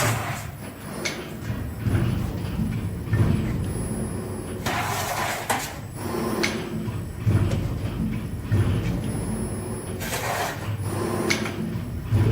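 RONGWIN RWA05-1400PC1 full-servo CNC panel bender running through a bending program: servo drives run with repeated knocks as the blank holder and blade move. There are two longer hissing stretches, about five and ten seconds in.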